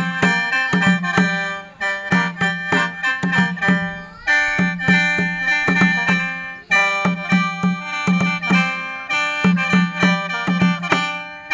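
Khaen, the Lao/Isan bamboo free-reed mouth organ, played in a lively rhythmic style: chords over a pulsing drone, in phrases broken by short breath pauses about 2, 4 and 7 seconds in.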